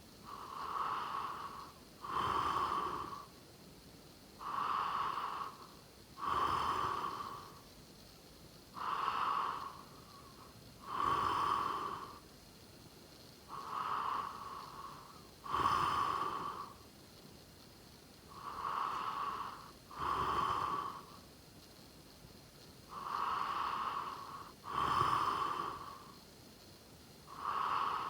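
A sleeping person snoring. Each breath in and each breath out is heard as a separate breathy noise, paired and evenly paced, with one full breath about every four and a half seconds.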